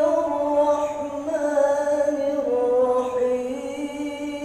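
A man reciting the Qur'an in melodic tilawah style, holding long notes that step slowly up and down in pitch.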